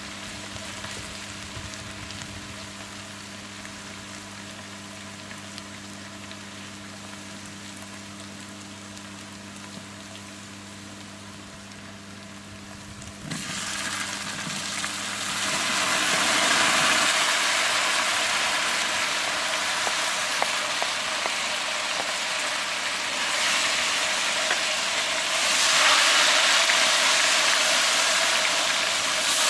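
Food frying in hot oil in a cooking pot: a steady sizzling hiss with a faint low hum underneath. About thirteen seconds in the sizzle suddenly gets much louder and stays loud, as if more food hit the oil.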